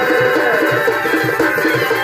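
Live chhau dance music: a reed pipe, shehnai-like, holds a melody over steady drum strokes, about three or four beats a second.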